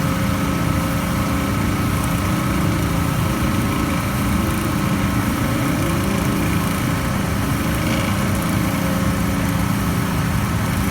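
Belt-driven PAN760SF unit running steadily with a low hum and a rough, grinding undertone. The grinding persists even with a new fan belt fitted, so the belt is not its cause.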